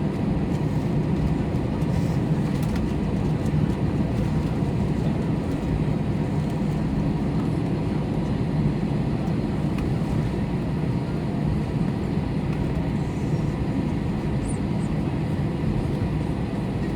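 Steady cabin rumble of an Airbus A321 taxiing to the gate after landing, its CFM56 engines at idle.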